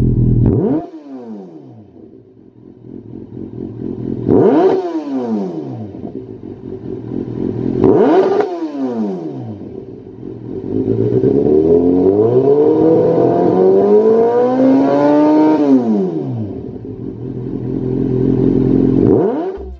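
Kawasaki Z800's inline-four engine, stationary, revved through a Lextek OP1 aftermarket slip-on silencer. High revs drop back to idle within the first second, then two sharp blips come about four and eight seconds in. A slower climb is held high for several seconds and falls away around sixteen seconds, and a last rise and fall comes near the end.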